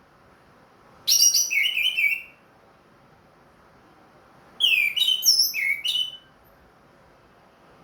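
Orange-headed thrush (anis merah) singing: two short phrases of quick, hooked whistled notes that sweep downward, about a second in and again past the middle, with quiet pauses between.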